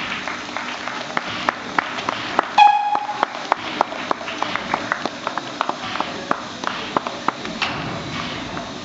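Scattered single hand claps from a crowd, a few per second and irregular. About two and a half seconds in comes one short, pitched whistle toot, the loudest sound.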